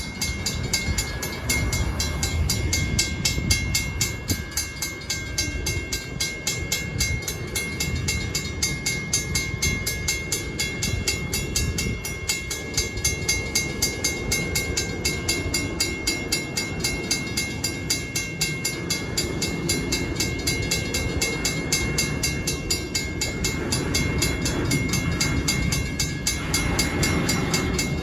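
Stockton Terminal and Eastern train running past at close range. A continuous rumble is joined by a steady high tone and rapid, even ticking.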